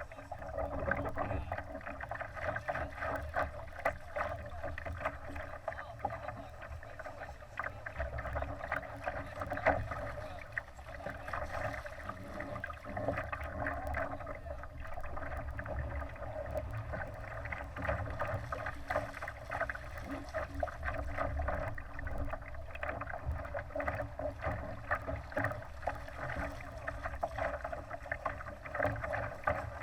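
Water rushing and slapping against the hull of a Laser sailing dinghy under way: a steady wash with many small irregular splashes.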